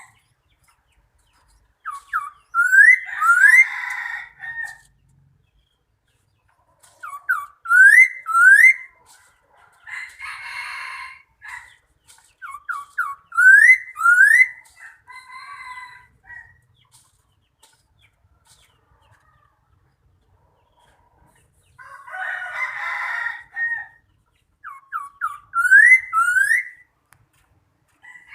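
A bird calling repeatedly. There are four phrases, each a few short rising whistles building to two longer upslurred notes, and two harsher, raspy calls fall between them.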